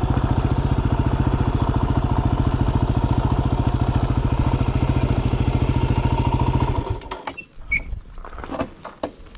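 Yamaha WR250R's single-cylinder engine idling steadily, then shut off about seven seconds in. After it stops, a few faint clicks and rustles.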